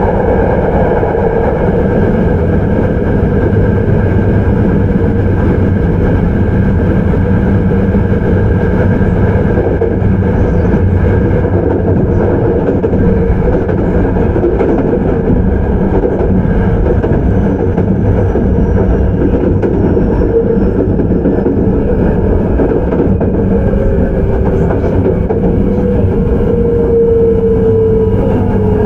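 Hankyu 9300 series electric train heard from inside the car, running at speed: a steady rumble of wheels on rail and car-body noise. Near the end, the Toyo IGBT inverter and traction-motor whine slowly falls in pitch as the train slows.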